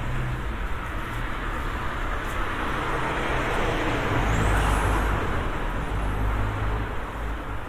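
Car driving past on a city street, its tyre and engine noise swelling to a peak about halfway through and then fading, over a low rumble of street traffic.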